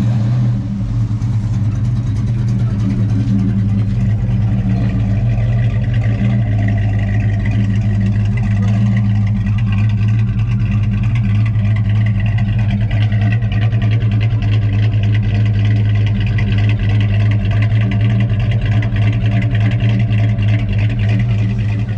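A car engine running steadily at idle, a low even drone that holds one pitch throughout.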